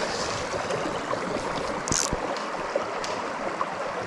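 Mountain brook water rushing steadily over rocks, with a brief high swish about two seconds in.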